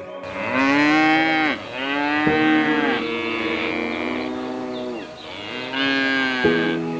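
Three long, drawn-out animal calls, each rising and then falling in pitch, the last one near the end.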